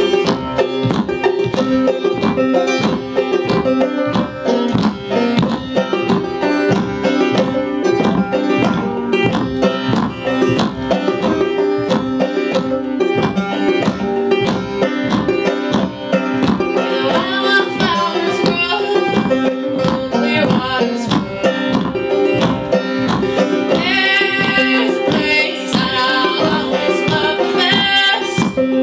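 Acoustic string band playing a brisk tune: banjo, mandolin and acoustic guitar picking quick notes over upright bass. A little past halfway, singing voices come in and then drop out again, returning near the end.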